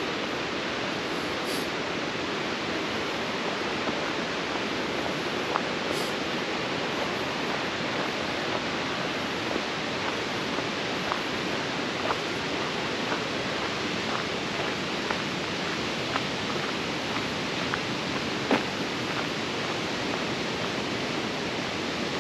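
Steady rushing of a river, an even hiss of water, with faint footsteps on the trail about once a second and one sharper step near the end.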